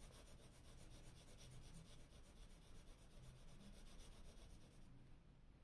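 Faint scratching of a graphite pencil on smooth Bristol drawing paper, a steady run of short strokes that stops near the end.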